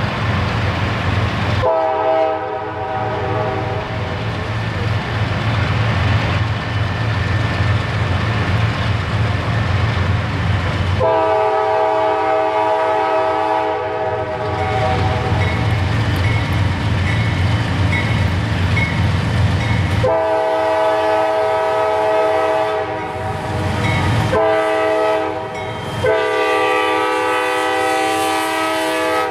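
GE diesel freight locomotive approaching and passing close by, its engine rumbling under a multi-note air horn that sounds in long blasts, with shorter ones near the end, as for a grade crossing.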